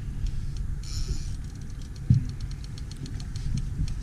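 Suzuki 250 outboard motor running slowly at trolling speed, a steady low rumble. Light ticks run through it, and there is one thump about two seconds in.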